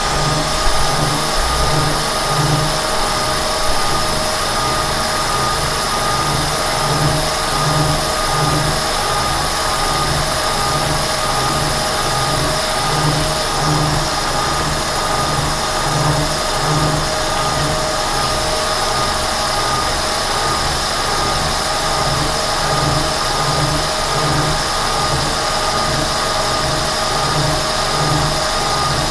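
Kearney & Trecker 307 S-12 horizontal milling machine running under power feed, its staggered-tooth cutter taking a cut in steel, with a steady hum and whine and a low throb that pulses a little more than once a second.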